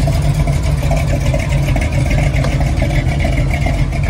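Car engine running steadily at low speed close by, a constant low rumble with no revving.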